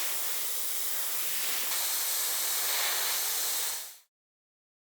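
Continuous spraying hiss, starting and stopping abruptly and growing slightly louder part-way through.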